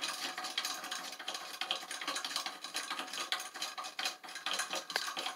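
Plastic toilet flush lever being unscrewed from the tank wall: a steady run of small irregular clicks and rattles as the plastic mounting nut is worked loose inside the porcelain tank.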